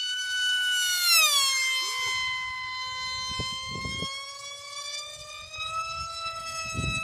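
A Ritewing Demon flying wing's Mega 16/30/2C brushless motor spinning a 6x4 APC propeller on 6S, a high-pitched whine that drops sharply in pitch about a second in as the plane flies past, then holds and rises slightly. A few low rumbles come and go underneath.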